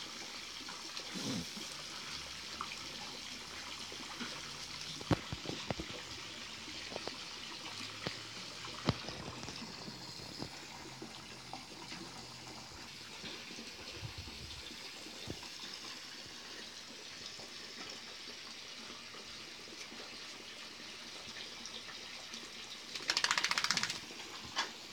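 Steady hiss of water running from a garden hose, with a few faint clicks and a brief louder rattling burst near the end.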